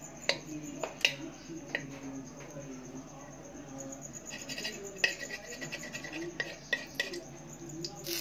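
A metal spoon clinking and scraping against a wok (kadai) as a lump of ghee is pushed around to melt, with a scattering of sharp clinks.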